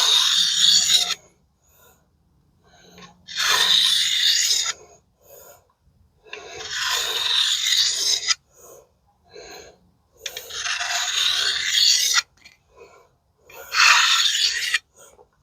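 A kukri's steel edge scraping along a Fallkniven CC4 pocket sharpener in five long strokes of a second or two each, with light taps between strokes. The strokes smooth out the edge after grinding.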